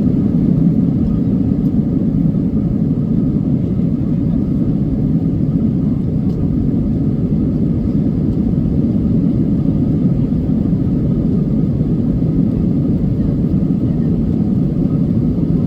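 Steady low rumble of an airliner cabin in flight: engine and air noise with no change in level.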